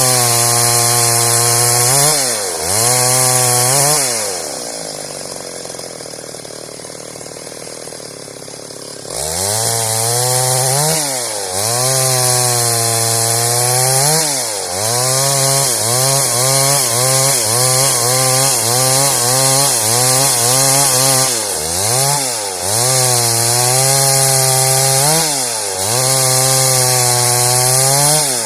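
Stihl MS 382 two-stroke chainsaw cutting wood: the engine runs at high revs and its pitch sags and recovers over and over as the chain bites. About a quarter of the way in it drops to a quieter, lower run for a few seconds, then revs back up and resumes cutting with repeated dips.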